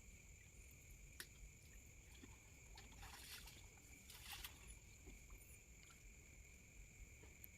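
Near silence: a faint steady high-pitched whine, with two short bursts of water splashing about three and four seconds in and a couple of faint clicks.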